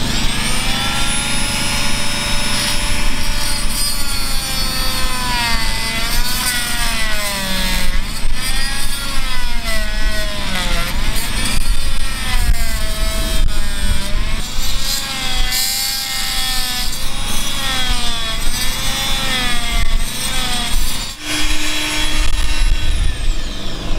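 Oscillating multi-tool cutting into the fibreglass deck around a chainplate to dig it out. The motor whine spins up, then dips and rises again and again as the blade bites and eases. It stops a few seconds before the end, runs again briefly and winds down.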